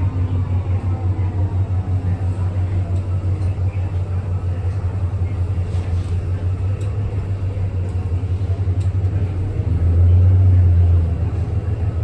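City bus making a strange, loud low drone that pulses rapidly, with faint higher tones sliding down in pitch over the first few seconds. The drone swells louder for about a second around ten seconds in.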